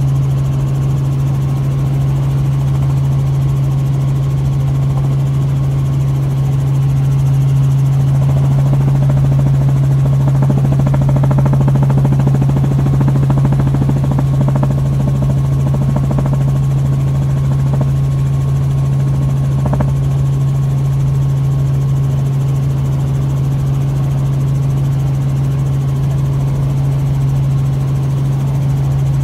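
Helicopter heard from on board: a loud, steady engine and rotor drone with a strong low hum.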